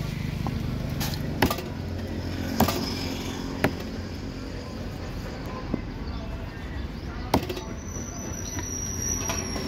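Cleaver chopping rohu fish pieces on a wooden stump chopping block: about five sharp knocks, roughly a second apart, over a steady low hum.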